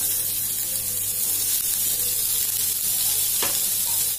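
Sliced onions sizzling in hot oil in an aluminium kadai as they are stirred with a steel ladle, with a single sharp knock about three and a half seconds in.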